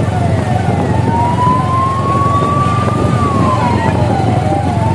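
A vehicle siren wailing: one tone rises slowly for about three seconds, drops, then starts rising again, with shorter falling tones repeating underneath. A steady low rumble of vehicle noise runs beneath it.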